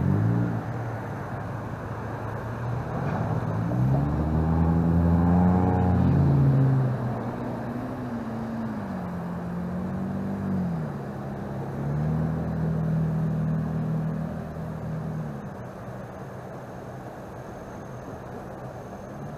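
Engine of a motor vehicle driving by: its pitch climbs, drops, wavers as it changes speed, then holds steady before fading away.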